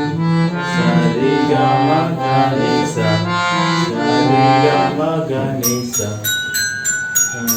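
Electronic keyboard playing a simple practice melody: a run of held notes over a low accompaniment. Near the end a few short, ringing bell strikes.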